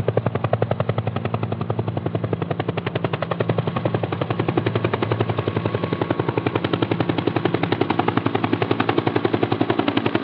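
Sustained automatic gunfire: a rapid, unbroken stream of evenly spaced shots.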